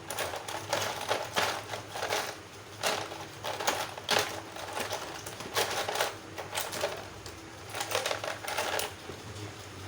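Irregular clicking and rattling of small hard parts being handled, in uneven clusters with short pauses, over a faint steady hum.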